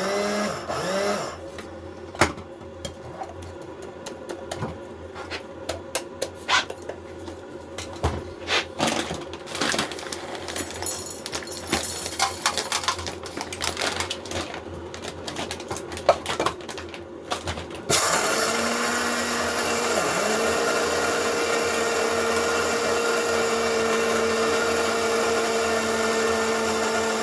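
A small electric kitchen appliance motor running with a steady hum, stopping about a second and a half in. Scattered clicks and knocks of handling follow, and at about eighteen seconds the motor starts again, dips once briefly and runs steadily.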